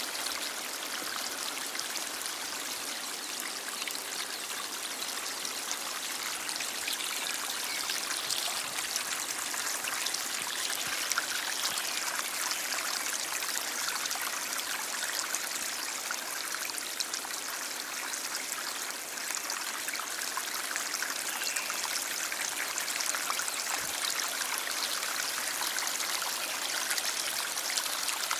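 Stream flowing steadily: a constant, even rush of water with fine trickling and splashing, mostly high and hissy with little low rumble.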